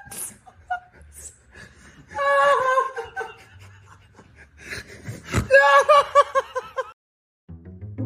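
Hearty, high-pitched laughter in two bouts, each a run of quick repeated ha-ha pulses, about two seconds in and again about five seconds in.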